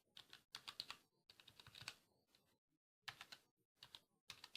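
Keys of a Motospeed CK104 mechanical keyboard with red (linear) switches being pressed in short quick clusters, a faint clatter of keystrokes that the owner says doesn't make much noise.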